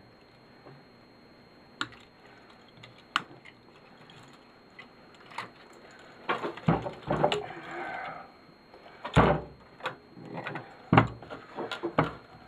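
Garage door opener being dismantled: scattered sharp clicks, then a busier run of knocks, rattles and a short scrape as its wiring is snipped and pulled out and its plastic and metal parts are handled, with heavier knocks in the second half.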